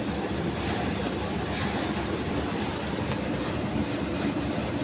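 Tractor-driven paddy thresher running: a steady, even mechanical drone, heaviest in the low range.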